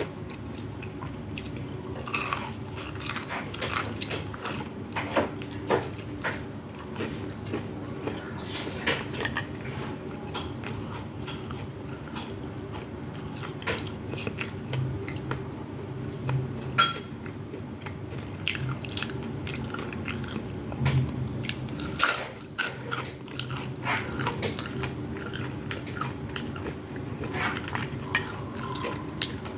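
Close-up eating sounds: biting and chewing with wet mouth noises, mixed with clinks of a spoon or cutlery against a plate. A steady low hum runs underneath.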